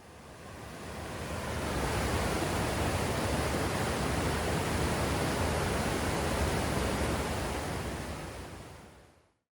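Steady rushing water, fading in over about two seconds and fading out near the end.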